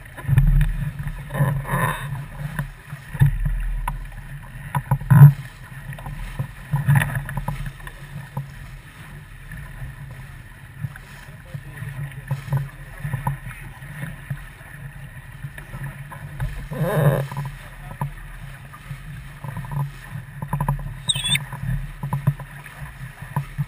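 Rushing wind and water noise aboard a sailboat under way, with a steady low rumble and irregular knocks, the loudest about five seconds in and again near the middle.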